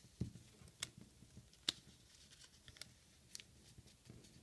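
Origami paper being folded and creased by hand: soft paper rustling with a few sharp crackles, two louder ones about one and two seconds in.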